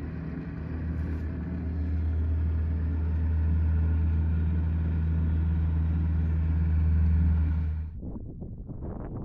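Compact tractor engine running steadily under load while driving a front-mounted snowblower that throws snow, a steady low drone. It cuts off suddenly near the end, leaving quieter irregular rustling.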